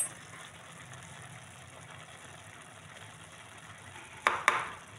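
Cooking pots and utensils clanking: a brief click at the start, then two sharp clanks close together about four seconds in, over a low steady hum.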